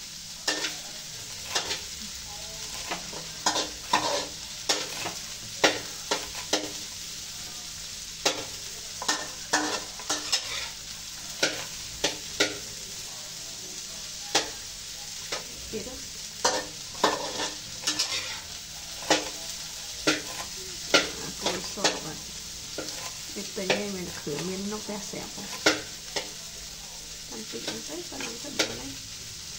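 Kitchen knife chopping green onions on a wooden cutting board: irregular sharp taps, about one or two a second, over a steady background hiss.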